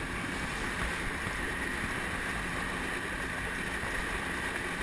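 A motorboat under way: a steady rushing noise of wind and water.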